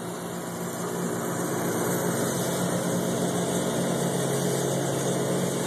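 An engine idling, a steady low hum that gets a little louder over the first two seconds and then holds even.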